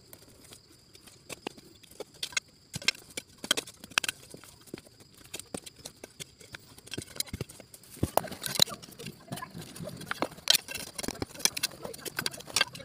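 Digging in stony soil around a shrub's roots: irregular scrapes, knocks and small snaps of earth, stones and roots, busier and louder from about halfway through.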